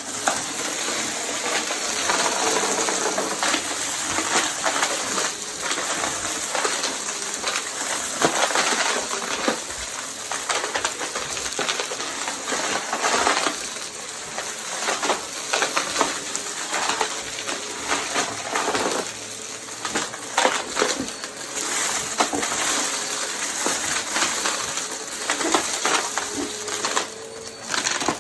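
Vacuum cleaner running with a steady high hiss, overlaid with frequent sharp clicks and crackles of debris being picked up.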